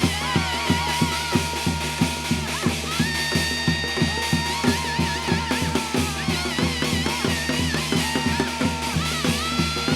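Korean shamanic ritual (gut) music: fast, steady drumming at about three to four strokes a second under a melody instrument playing long held notes that waver.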